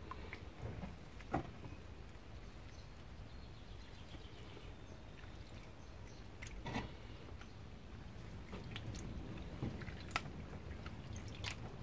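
Sludge and water being scooped out of a garden pond: a few scattered knocks and faint wet sounds over a quiet background.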